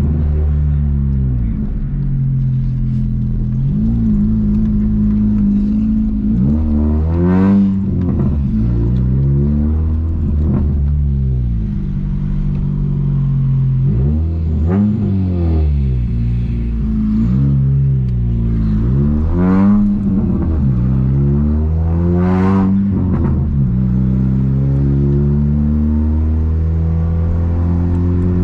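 1999 VW Gol G2's 1.0-litre eight-valve four-cylinder engine running through a sport exhaust with a 4-inch HKS muffler while the car is driven. The engine pitch climbs and drops again several times as it accelerates and eases off.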